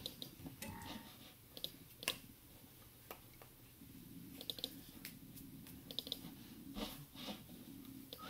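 Irregular soft clicks and taps from the hands and clothing of a person signing, with hands meeting and cloth rubbing, over a faint room hum.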